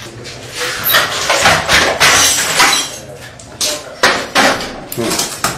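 Repeated irregular crashing and clattering of objects being smashed and knocked about, with glassy clinks among the hits.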